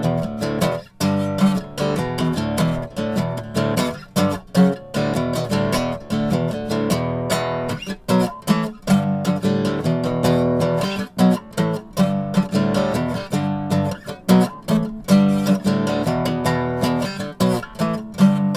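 Background music of a strummed acoustic guitar, with chords struck in a quick, steady rhythm.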